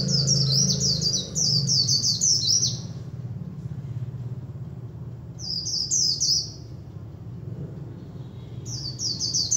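Caged white-eye singing quick runs of high, falling twittering notes in three bursts: a long run at the start, a short one about halfway, and another starting near the end.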